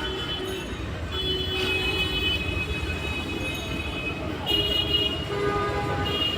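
Road traffic rumbling steadily, with horns sounding in held tones that come and go, the longest about a second in and again from about four and a half seconds in.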